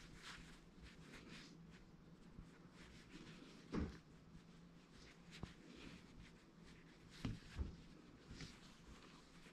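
Near silence with faint room noise, broken by a few soft knocks: the strongest about four seconds in, a weaker one a little later, and two more close together after about seven seconds.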